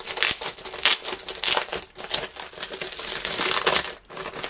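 Clear plastic wrapping crinkling in irregular crackly rustles as hands pull and tear it open from a pad of scrapbook paper.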